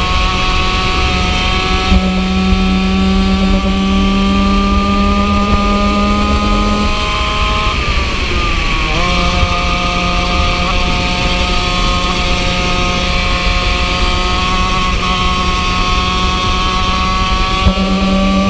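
Yamaha two-stroke kart engine, the KT100 class engine, running at high revs, its pitch climbing slowly as the kart speeds up. About eight seconds in the pitch drops briefly as the driver lifts for a corner, then it climbs steadily again.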